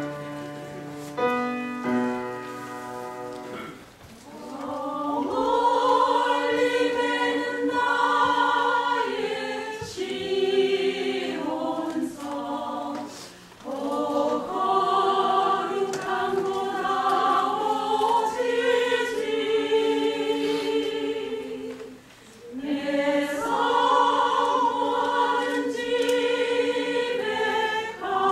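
Women's choir singing a Korean hymn in parts, phrase by phrase, with short breaks for breath between phrases. A few instrumental notes sound in the first few seconds before the voices come in.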